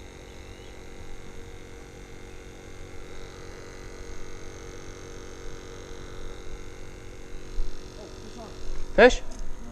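A steady, unchanging hum made of several level tones. A single spoken word comes near the end.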